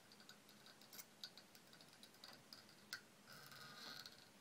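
Near silence with a few faint small ticks and, about three seconds in, a brief soft rustle: hands handling the thread and fly at a fly-tying vise.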